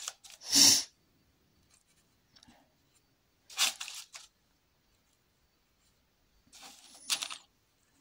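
Three short, scratchy rasps of a paintbrush's bristles dragged across acrylic canvas, about a second in, in the middle and near the end.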